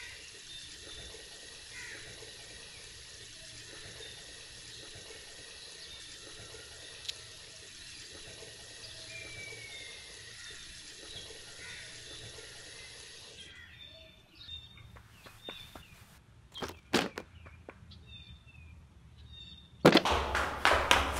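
Water running steadily from a tap, an even hiss with faint high chirps over it. It cuts off abruptly about two-thirds of the way through, and a few sharp knocks follow. Near the end a sudden, much louder sound with a fast regular pulse starts.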